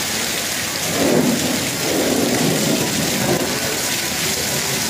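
Heavy hail and rain pelting the road and cars, a steady hiss. A louder low rumble swells about a second in and again from about two to three and a half seconds.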